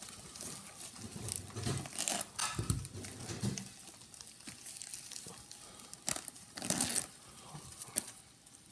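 Plastic poly mailer crinkling and rustling as it is handled and pulled open, in irregular bursts, with the loudest crackles about six and seven seconds in.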